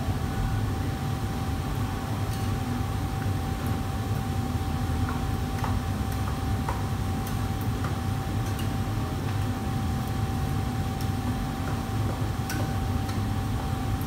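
Steady low roar of a commercial kitchen's wok burners and extraction hood, with a steady whine above it and scattered light clicks of metal utensils against woks.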